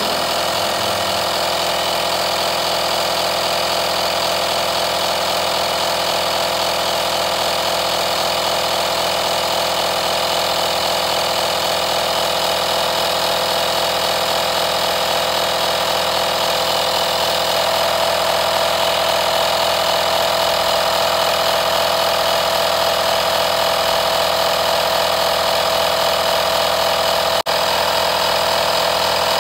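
Voroly portable car tyre inflator running steadily, its small compressor pumping air into a car tyre through the hose screwed onto the valve.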